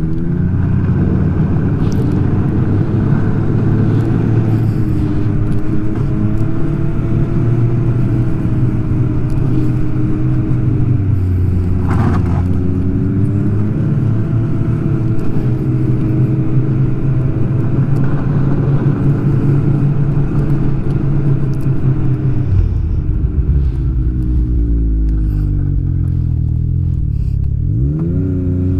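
Snowmobile engine running steadily at trail speed, its pitch easing down a few seconds before the end and climbing again as the throttle is opened near the end.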